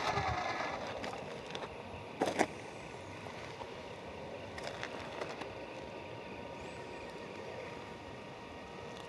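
Electric-motor and gear whine of a TRX4 RC crawler with a 550-size 21-turn motor, falling in pitch and dying away within the first second as the truck slows. It is followed by a low, steady background, a pair of sharp knocks about two seconds in, and a few fainter clicks a little later.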